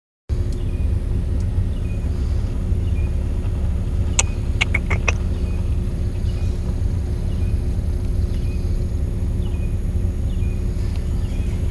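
A steady low rumble with a faint constant hum, and a quick cluster of sharp clicks about four seconds in.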